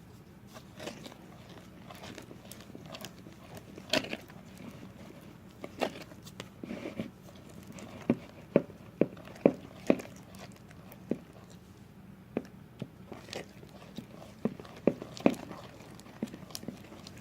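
Half-formed glue-and-borax slime being stirred in a bowl with a mixing tool: irregular sticky clicks and pops, coming quicker around the middle.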